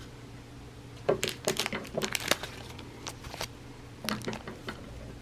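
Rustling and crinkling of baseball card rack packs and cards being handled, in irregular clusters of small crackles about a second in, around three seconds and again about four seconds in.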